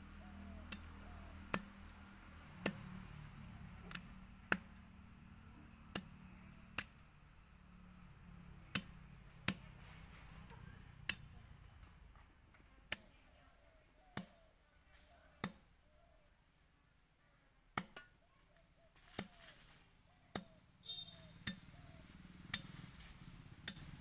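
A heavy curved knife chopping chicken feet on a wooden block: sharp single chops at irregular intervals, roughly one a second.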